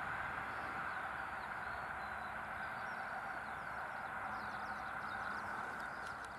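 Rolling noise of a receding passenger train, a steady rushing of wheels on rail that slowly fades as it runs into the distance. Birds chirp faintly over it in the second half.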